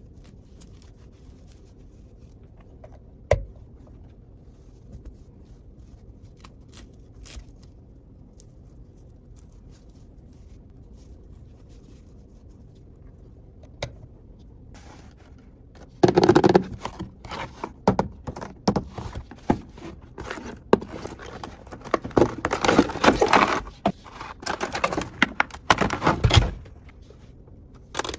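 Small plastic toy pieces and packaging being handled. At first there are only a few isolated clicks, then a little over halfway through comes a long stretch of busy clicking, scraping and crinkling that stops shortly before the end.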